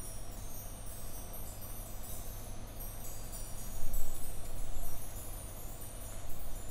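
Contemporary ensemble music: a dense glitter of very high, short chime-like tones over a steady low hum, with a louder low swell about four seconds in.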